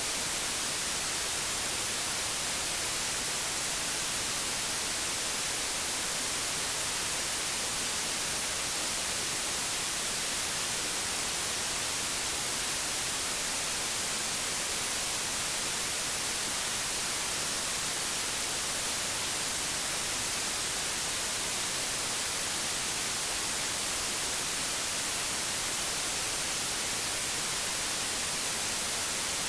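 Old analogue television static: a steady, even hiss, strongest in the treble, with no change or break.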